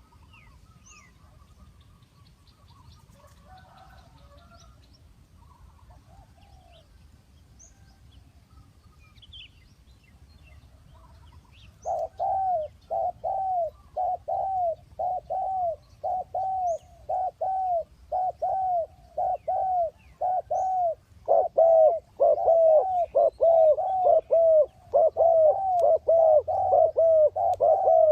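Faint chirps of small birds, then about twelve seconds in a dove starts cooing loudly in a fast run of short arched coos, about one and a half a second. The coos crowd closer together and overlap near the end.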